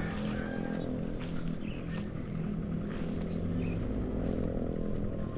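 An engine running steadily at a low, even pitch, with a few short bird chirps above it.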